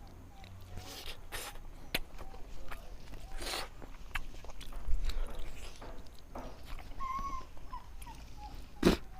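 Close-up eating sounds: lip smacks, clicks and chewing, with a sharp click just before the end. A few short whining sounds come in around the first second and again about seven seconds in.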